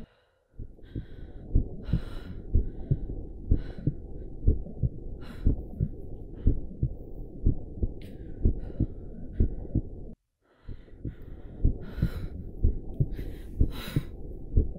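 Heartbeat sound effect: low, muffled thuds at about two beats a second. It cuts out for about half a second at the start and again about ten seconds in, with short hissy bursts over it now and then.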